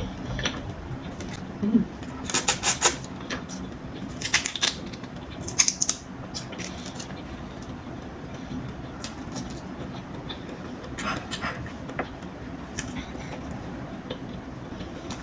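Crackling of cooked prawn shells being peeled off by hand, in several short bursts during the first six seconds and again about eleven seconds in, with quieter eating sounds between.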